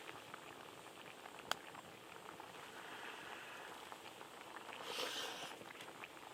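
Faint crackling and ticking of a pot simmering over a small wood-burning camp stove, with one sharp click about a second and a half in and a short hiss around five seconds in.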